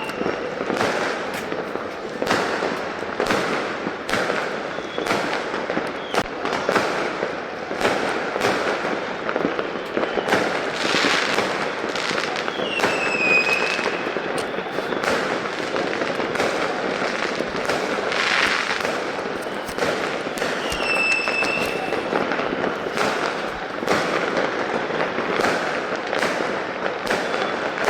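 Many fireworks going off at once: a continuous crackle of bangs and pops with no letup.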